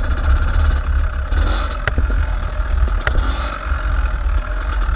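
Dirt bike engines running as the bikes ride slowly, with heavy wind rumble on the microphone. Two sharp clicks come about two and three seconds in.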